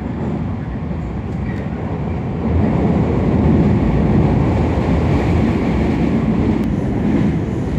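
Running noise of an electric commuter train heard from inside the car: a steady rumble of wheels on rail and motors, getting louder about two and a half seconds in.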